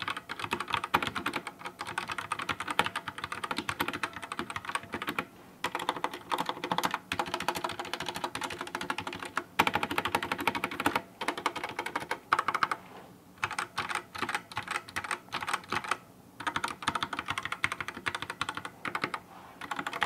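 Typing on a stock budget 60% mechanical keyboard with red switches, a plastic case and unlubed stabilizers: a fast clatter of keystrokes, broken by a few short pauses. The sound is plasticky, hollow and pingy, and sounds terrible, the mark of an unmodded cheap board.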